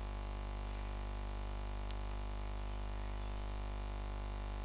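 Steady electrical hum with a stack of overtones, picked up by the recording during a pause in the talk, with one faint tick about two seconds in.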